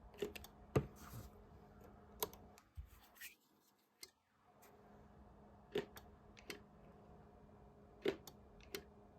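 About ten sharp clicks, irregularly spaced, from switches and knobs being worked on a CB radio and SWR meter during calibration, over a faint steady hum. The sound drops out completely for about a second near the middle.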